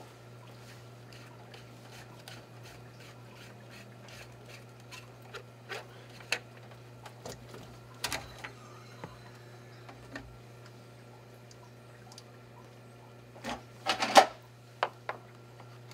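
Scattered light clicks, ticks and scrapes of hand-tool work at the base of a hot tub pump, over a steady low hum, with a quick cluster of louder knocks about fourteen seconds in.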